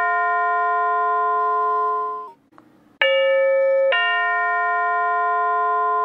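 STI-3350 wireless doorbell chime receiver playing its electronic chime tones as the push-button steps through its ten selectable sounds. A held ringing tone dies away about two seconds in, then about a second later a two-note ding-dong sounds, higher then lower, with the lower note held.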